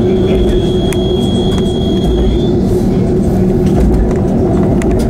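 Regional diesel railcar running along the line, its engine giving a steady drone, with the wheels clicking over rail joints a few times. A thin high whine sounds for the first two seconds or so, then stops.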